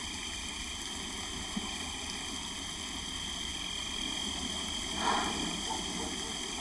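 Low, steady background ambience with a faint steady high-pitched tone, and a brief soft sound about five seconds in.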